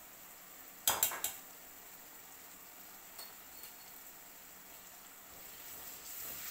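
A spoon knocks sharply against a stainless steel frying pan three times about a second in, then taps lightly twice, over a faint sizzle of onion and tomato frying.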